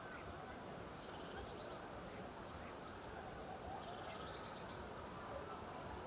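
Faint, steady lakeside outdoor ambience, with two short, high, rapidly pulsing trills: one about a second in and one about four seconds in.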